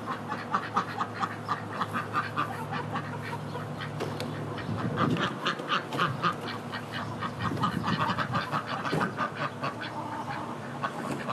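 Domestic ducks quacking in a long run of short calls, several a second.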